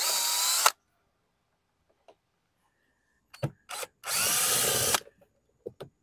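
Cordless drill backing screws out of the edge of a car door panel in two short runs, the first under a second long and the second about a second, with a few light clicks between them.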